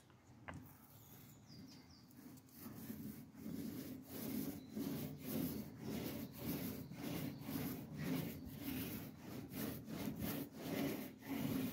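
Foam paint roller rolling unthinned two-pack epoxy primer onto a car bonnet: a rhythmic rubbing of back-and-forth strokes at about two to three a second, growing louder a few seconds in.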